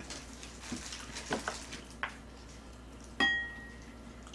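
A spoon scraping and tapping against a bowl of fried rice: a few soft taps, then about three seconds in one sharp clink that rings briefly.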